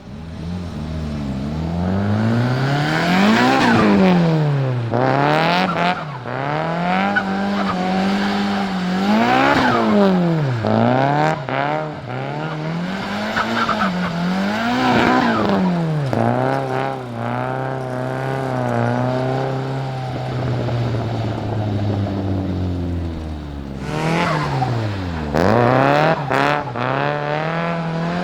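Nissan Silvia S15's turbocharged SR20DET four-cylinder engine revved up and cut off again and again, with turbo flutter on the throttle lifts. Revs are held steady for a few seconds in the middle. Near the end comes a brief tyre squeal.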